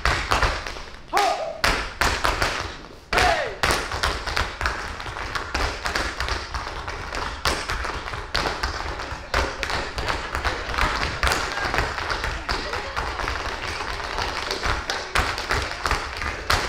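Tap dancers' shoes striking a stage floor, several dancers in unison: a few loud, spaced strikes at first, then a fast, continuous run of taps.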